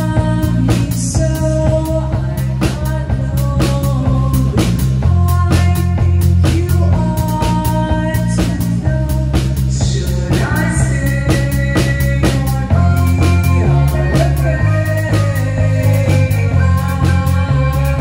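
Live synth-pop band playing: drum kit keeping a steady beat under a heavy bass guitar line, with a woman singing over it at times.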